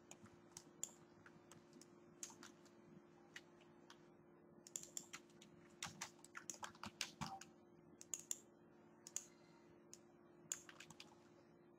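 Faint computer keyboard keystrokes and mouse clicks in irregular clusters, over a steady low hum.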